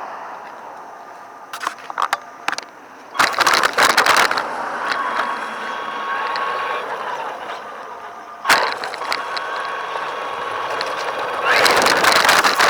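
Small RC car running over hard ground: rolling wheel noise that comes and goes, a thin motor whine, and a few sharp clicks and one knock.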